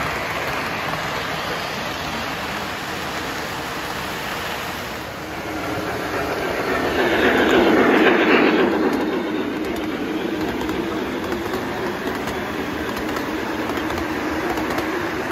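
Toy electric trains running on the layout track: a steady rolling clatter of wheels on rail. It swells loudest as a locomotive runs right past, about eight seconds in, then settles into a steady hum of passing cars.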